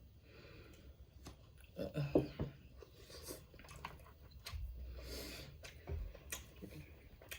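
A person eating seafood close to the microphone: soft chewing and mouth sounds with scattered small clicks, and a brief murmur about two seconds in.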